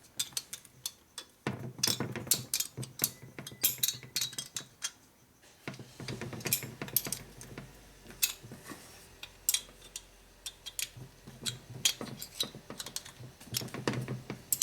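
Hand tools clicking and clattering on metal as nuts are fitted and tightened on a motorcycle engine: a long run of irregular sharp clicks, some coming in quick clusters.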